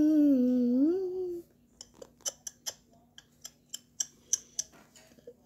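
A young child's drawn-out whining cry, dipping in pitch and then rising, ends about a second and a half in. It is followed by a run of short, sharp clicks, about four a second.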